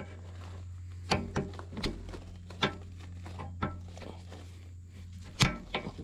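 Steel hydraulic quick-connect couplers being pushed together and seated on a compact track loader's auxiliary port: a series of sharp metallic clicks and clacks, the loudest about five and a half seconds in, over a steady low hum.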